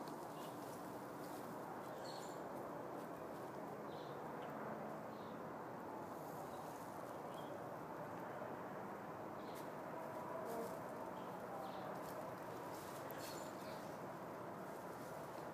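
Faint, steady outdoor background noise, with scattered brief high chirps.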